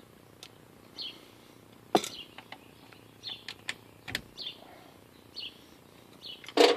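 Sharp metal clicks and taps of a screwdriver working at the spindle nut and its keeper on a trailer wheel hub, the loudest about two seconds in and another about four seconds in, with a louder clatter just before the end. Small birds chirp every second or so throughout.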